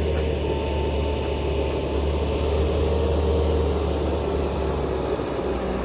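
Bobcat T650 compact track loader's turbo-diesel engine running steadily.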